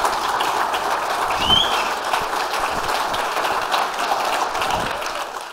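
Congregation applauding, a steady patter of many hands clapping that fades out at the very end, with a brief high whistle about a second and a half in.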